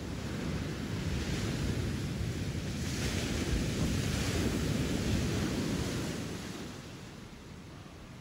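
Sea surf washing onto a rocky shore, with wind rumbling on the microphone; the wash swells about halfway through and fades out near the end.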